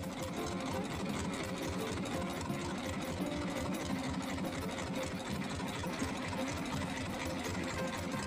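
A small shrimp-trawling boat's engine running steadily, with a rapid, even beat.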